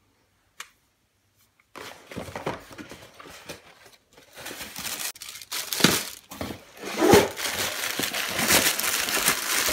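Cardboard box and plastic wrapping being handled as a boom arm is unpacked: a single click, then from about two seconds in a dense run of crinkling and rustling with several louder crackles.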